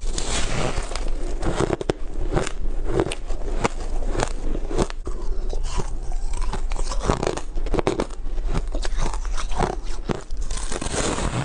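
Ice being bitten and crunched close to the microphone: many sharp irregular cracks over a steady grinding crunch as the pieces are chewed.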